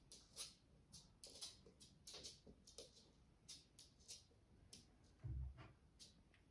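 Faint, irregular clicking of an African grey parrot's claws on a hard floor as it walks, a few clicks a second. One dull low thump about five seconds in.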